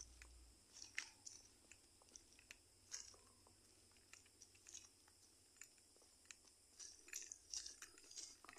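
Faint footsteps crunching on dry leaves and grit, coming irregularly and growing busier near the end.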